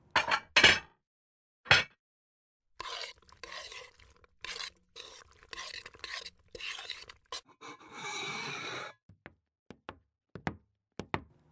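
Plates and utensils handled as food is dished up: a run of short scraping strokes, a steadier stretch of the same about eight seconds in, then several light ticks near the end.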